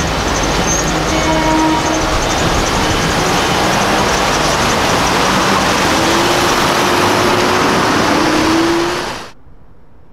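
Loud, steady road-traffic noise of cars driving past a railroad crossing, with a faint rising engine tone near the end. The noise cuts off sharply about nine seconds in, leaving a much quieter background.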